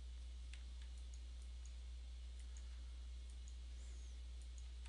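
Faint computer mouse clicks, a dozen or so scattered irregularly, over a steady low electrical hum.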